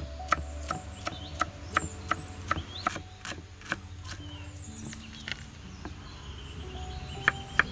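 Kitchen knife chopping vegetables on a wooden cutting board, sharp knocks about three a second, easing off for a few seconds midway and starting again near the end.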